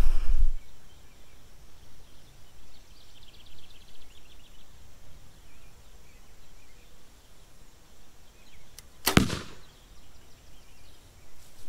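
One sharp snap about nine seconds in as a 74-pound Mathews V3 compound bow is shot, sending a 585-grain arrow into a paper target, with a small tick just before it. Before the shot there is only faint outdoor background.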